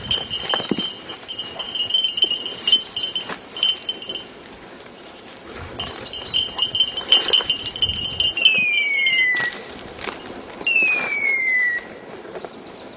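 A hunting dog's bell ringing on and off as the dog works through the brush. The ringing stops about nine seconds in and is followed by two falling whistle-like screeches, each about a second long.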